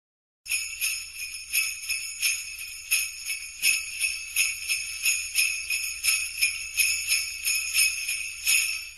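Sleigh bells shaken in a steady rhythm, starting about half a second in.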